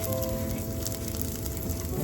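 Pork and onion skewers sizzling on an electric shichirin grill, with scattered crackles, over background music with long held notes.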